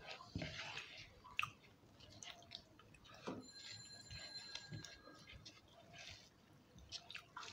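Quiet eating with the hands: chewing, lip smacks and fingers working soft khichuri rice on plates, with small scattered clicks and a sharper click about a second and a half in. A faint high steady tone sounds for about a second and a half midway.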